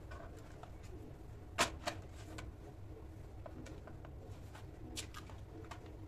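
Pigeons cooing softly in the background of a quiet kitchen. Two sharp clicks from handling on the counter about a second and a half in, and another near the end.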